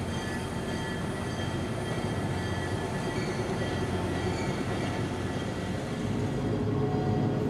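Diesel locomotive running as it slowly pulls a passenger train by: a steady low rumble with thin, steady high-pitched tones over it. About six and a half seconds in, the sound shifts to a slightly louder, lower rumble as the high tones fade.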